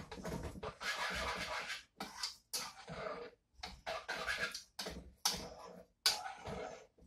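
Wire whisk stirring cheese sauce in a saucepan, scraping against the pan in irregular runs of strokes with short pauses between.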